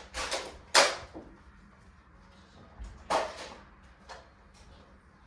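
Nerf blasters firing foam darts: a quick cluster of sharp clacks in the first second, the loudest just under a second in, then another strong clack about three seconds in and a couple of fainter ones after it.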